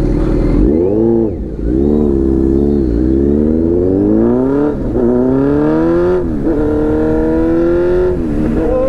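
Kawasaki Z900's inline-four through a full titanium Arrow exhaust, pulling hard up through the gears. The engine note climbs, drops back at each change and climbs again several times, then holds steady for a couple of seconds near the end before dipping and rising once more.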